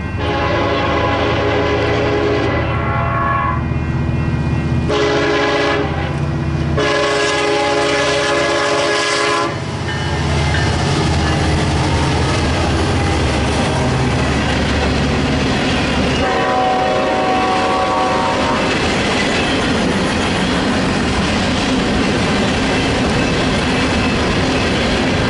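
Union Pacific diesel locomotive horn blowing a series of long blasts for a grade crossing over the first ten seconds, with a shorter blast again past the middle. Under it runs the low rumble of the locomotive, then the steady rolling rumble and wheel clatter of freight cars passing close by.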